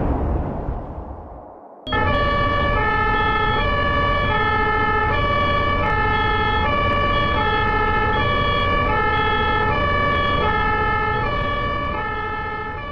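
Two-tone hi-lo ambulance siren sound effect, switching between two pitches about twice a second over a low rumble, starting about two seconds in and fading out near the end. Before it, the tail of a loud, noisy boom dies away.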